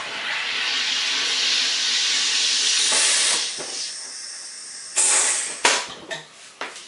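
SodaStream carbonator forcing CO2 into a bottle of berry juice: a strong, steady hiss for about three and a half seconds that then eases off. About five seconds in comes a short, sharp hiss as the excess pressure is vented, followed by a few knocks.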